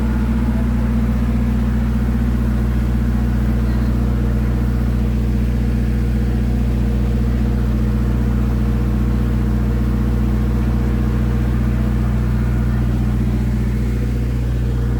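An engine running steadily at constant speed, loud and close, its low hum unchanging throughout.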